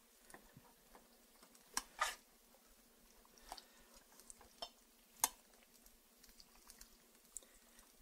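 A metal spoon stirring egg noodles in a thick creamy sauce in a stainless steel pot: a few short wet squelches and light clicks of the spoon against the pot, the loudest about two seconds in and again about five seconds in.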